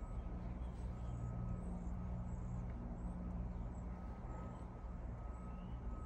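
Steady low engine-like hum, with faint short high chirps now and then.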